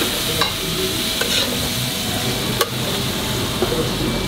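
Oil sizzling steadily in a large shallow steel pan, the start of frying tantuni, while a metal spoon stirs and scrapes through it. A few sharp clicks of the spoon against the pan come through.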